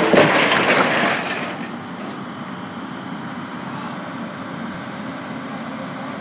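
Demolition debris cracking and crunching loudly for the first second or so, fading out by about two seconds in, under a Volvo excavator's diesel engine running steadily.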